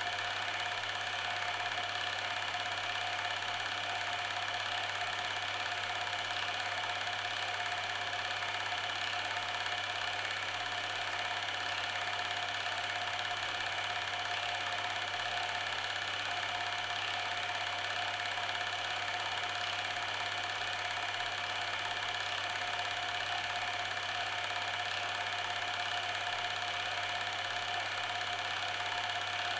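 A steady mechanical whirring drone that holds several constant tones, from a low hum to a thin high whine, unchanging in level throughout.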